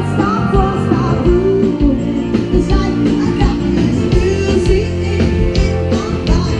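Live pop band playing loud music with drums, electric bass and keyboard over a steady beat, with a woman singing lead vocals.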